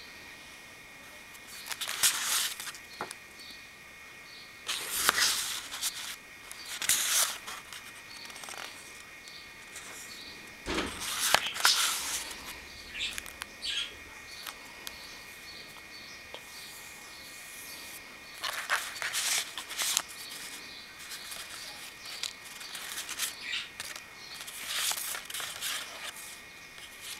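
Paper and card pages of a handmade spiral-bound scrapbook being handled and turned, rustling in short bursts every few seconds, over a faint steady high tone and faint bird chirps.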